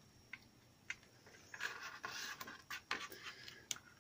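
Backing liner being peeled off double-sided tape along the edge of a paper pouch: a few light ticks, then from about a second and a half in a papery crackle and scratching that stops just before the end.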